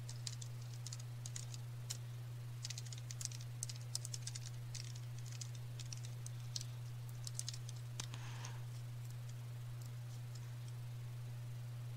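Typing on a computer keyboard: quick, irregular key clicks that stop about eight seconds in, over a steady low hum.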